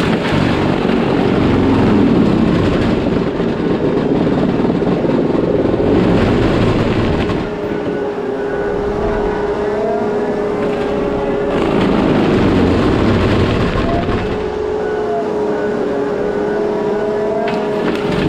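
Case skid steer running under load with a Shearex forestry mulching head spinning: a steady high whine over the engine and hydraulics, swelling louder and harsher several times.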